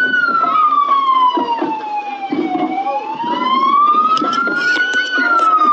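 A parade vehicle's siren wailing, its pitch falling and rising slowly about every five seconds, over the low rumble of engines.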